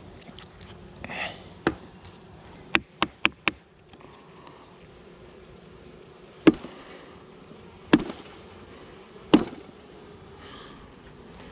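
Honey bees humming steadily around an open hive. Sharp knocks cut through it: one, then a quick run of four, then three more spaced about a second and a half apart.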